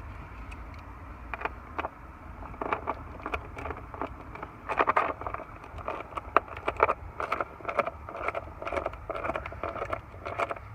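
Irregular clicks, rattles and scraping of wiring and small electrical parts being handled and pulled apart, over a steady low hum.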